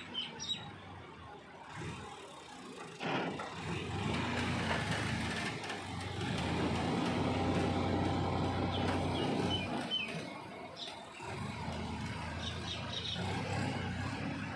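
Massey Ferguson tractor's diesel engine running as its hydraulic trolley tips out a load of soil. It gets louder about three seconds in and eases again about ten seconds in.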